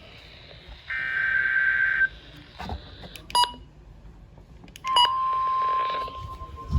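NOAA Weather Radio emergency alert broadcast. A buzzing digital SAME header burst lasts about a second near the start, and two sharp clicks come around the middle. About five seconds in, the steady single-pitched 1050 Hz weather radio warning alarm tone starts.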